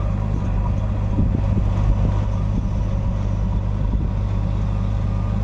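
Heavy diesel engine running steadily with a deep, even drone, and a few brief knocks between one and two seconds in.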